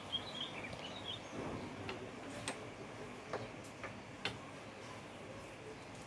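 A few faint, irregular metallic clicks and taps as a motorcycle starter motor is handled and fitted back into its mounting on the engine case.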